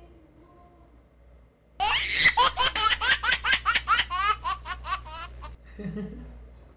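A person laughing: a fast run of high-pitched laughs, about four a second, starting about two seconds in and fading near the end.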